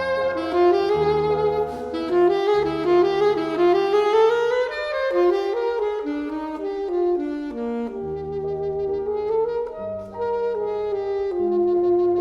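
Classical saxophone playing a legato melody with piano accompaniment: the saxophone line climbs in short steps over the first few seconds, then settles lower, over sustained piano bass notes.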